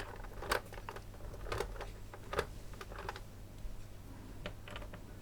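Scattered light clicks and taps as the control knobs are pulled off a Tomy Super Cup Football game's plastic case.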